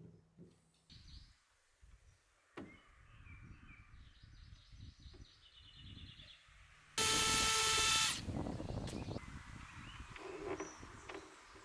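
Cordless drill running in one loud burst of about a second, about seven seconds in, its motor whine winding down as it stops. Around it, light knocks and handling of a wooden cabinet door, with birds chirping faintly.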